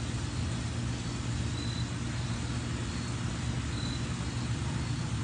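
Steady low hum of a car engine idling, heard from inside the car's cabin.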